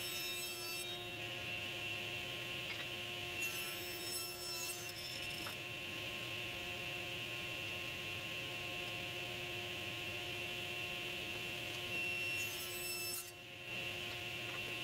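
SawStop table saw running steadily while walnut blanks are cross-cut to length. A high whine rises three times as the blade cuts through the wood: at the start, about four seconds in, and about twelve seconds in.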